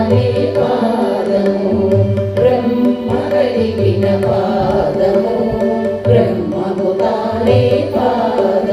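Background music: an Indian devotional song, with a singing voice over a sustained drone and drum strokes in a steady rhythm.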